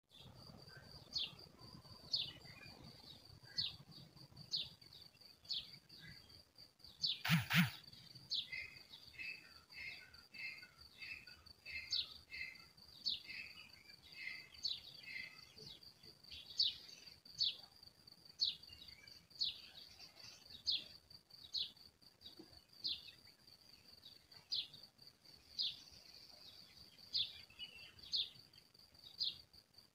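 Birds chirping with short high chirps about once a second over a steady high insect trill. A brief louder sound comes about seven seconds in.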